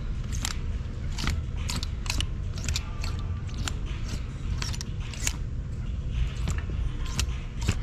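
Clothes hangers pushed one at a time along a clothing rack, giving sharp clicks and clacks at uneven intervals of about one to two a second, over a low steady rumble.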